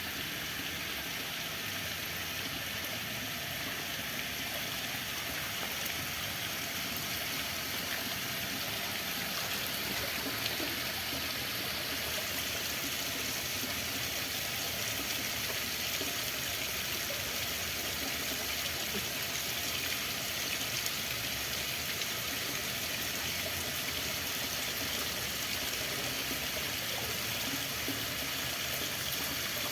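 Running water, a steady, even rush with no distinct splashes or drops standing out.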